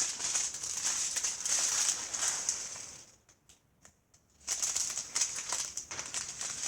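Small plastic bags of diamond painting drills, tiny resin rhinestones, rattling as they are handled and shaken, with a pause of near quiet about three seconds in.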